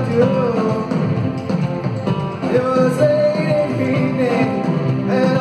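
Live rock band playing: a lead singer holding long, bending notes over electric guitars, keyboard and drums.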